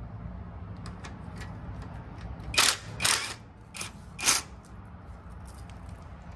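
Ratchet and socket clicking while a 10 mm screw is backed out: a few faint ticks, then four loud short ratcheting strokes in the middle.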